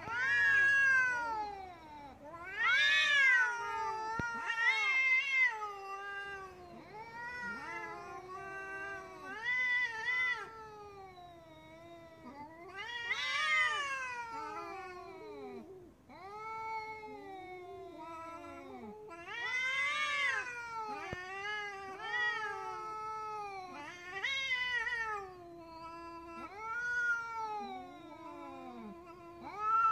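Two tabby cats in a standoff caterwauling: long, wavering yowls rising and falling in pitch, one after another and sometimes overlapping. These are the angry warning calls of cats squaring up to fight.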